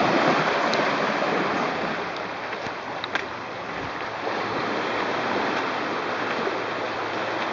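Small waves washing over a rocky shore: a steady rush of surf, a little louder at the start.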